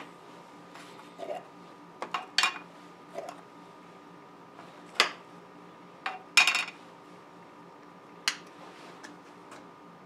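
Metal screw-on jar lids being unscrewed and set down on a tray, giving scattered clinks and knocks, the loudest about five and six and a half seconds in. A faint steady hum runs underneath.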